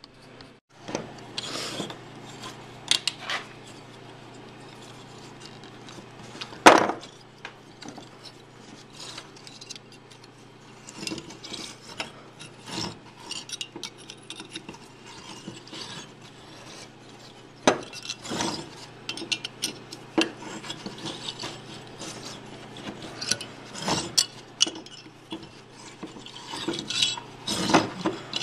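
Wire being wrapped around a stack of two flat steel bars and twisted tight with needle-nose pliers, binding them for forge welding: irregular scraping, rubbing and small metal clinks, with one sharper clink about seven seconds in, over a steady low hum.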